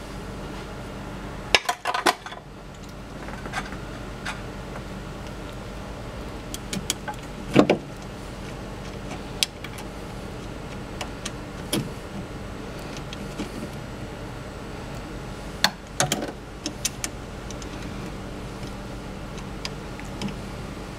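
Scattered sharp clicks and knocks of the F1 gearbox pump motor being handled and fitted onto its pump head, a few at a time with the loudest about halfway through, over a steady low hum.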